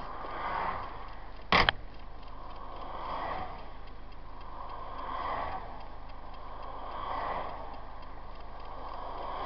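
Cab of a Hymer motorhome at motorway speed: a noise that swells and fades about every two seconds rises over the road noise, with one sharp loud knock about a second and a half in. The driver treats this noise as a problem.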